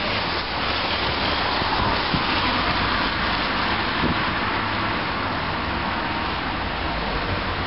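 Steady street ambience: an even rushing hiss at a constant level.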